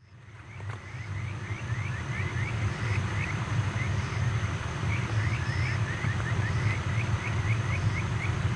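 Night insects calling: short rising chirps repeated several times a second, over a steady low rumble. The sound fades in at the start.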